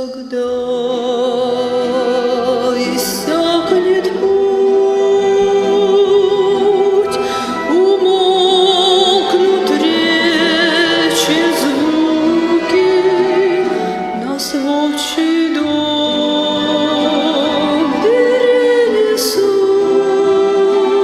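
Music with singing: a vocal melody of long held notes with vibrato over accompaniment.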